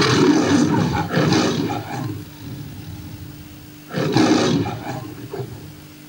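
The MGM lion's roar, played back from a VHS tape: two roars, the second starting about four seconds in.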